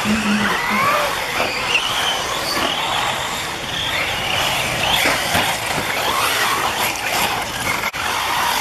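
Several 1/8-scale off-road RC buggies racing on a dirt track, their motors whining up and down in pitch as they accelerate and back off, over the scrabble of tyres on dirt, with a few short knocks.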